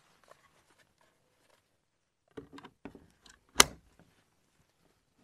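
Atlas 80V dual-voltage battery pack being pushed into the plastic battery slot of a cordless chainsaw: a few light scrapes and clicks, then one sharp latching click about three and a half seconds in.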